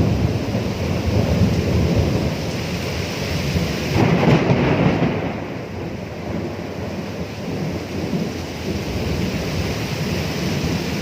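Thunderstorm: thunder rumbling low over steady rain, with a louder peal about four seconds in that dies away, leaving mainly the rain.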